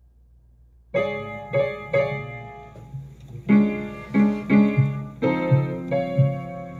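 Solo blues piano intro: a faint low hum, then chords struck about a second in, with a bass line and chords coming in a steadier rhythm from about the middle onward.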